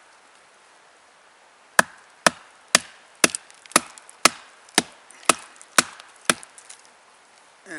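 Wooden baton knocking on the spine of a Bark River Sahara knife, driving the blade down through a split of very dense sparkleberry wood. About ten sharp knocks at roughly two a second, starting about two seconds in. The blade is wedged tight in the dense wood.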